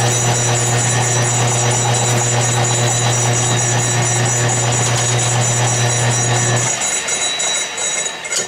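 Atlas lathe running at about 600 RPM while a 1/8-inch parting tool is hand-fed into 5/8-inch cold-rolled steel: a steady motor hum with high whining tones and cutting noise. About seven seconds in the motor hum cuts off and the lathe winds down.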